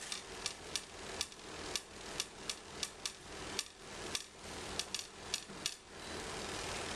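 Small cotton candy machine spinning sugar: its steady motor hum drops back and a run of sharp clicks comes, about three a second, until the hum returns near the end.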